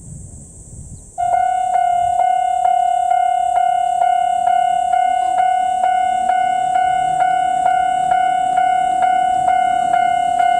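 Japanese railway level-crossing warning bell that starts about a second in and keeps striking about twice a second, loud and bell-like: the crossing alarm for an approaching train.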